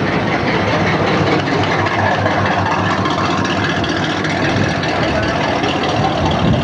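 Hot rod coupe's engine running steadily at low revs as the car rolls slowly by.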